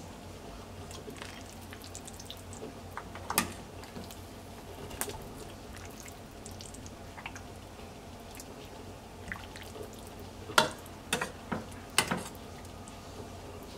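Beef short rib soup broth being ladled over glass noodles and radish in a bowl: dripping, trickling liquid with scattered sharp clicks, the loudest of them bunched together around ten to twelve seconds in.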